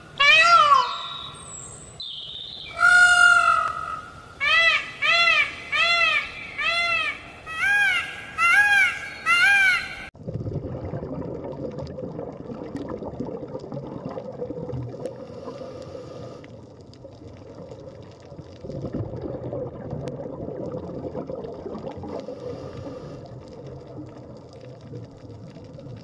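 Indian peafowl calling about a dozen times in quick succession, each loud call rising and falling in pitch. After about ten seconds the calls stop and a steady, low underwater rushing takes over.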